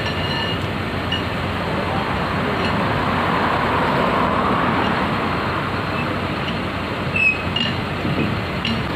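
Road traffic noise: a car passing close by, its tyre and engine noise swelling about four seconds in over a steady background of passing traffic. A few short ticks sound over it, the sharpest about seven seconds in.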